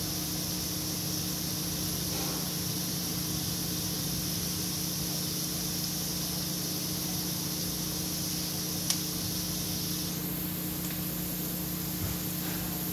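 Sliced onions sizzling steadily in hot oil as they deep-fry, just beginning to brown, over a faint low steady hum. A single short click about nine seconds in.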